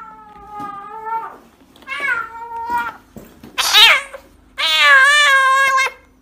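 A kitten meowing: about four long, drawn-out calls, the loudest and longest near the end with a wavering pitch.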